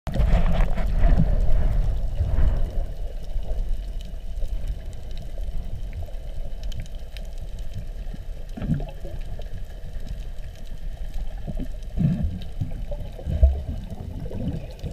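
Muffled underwater sound picked up by a submerged camera: a low rumble of moving water, with a few short thumps in the second half.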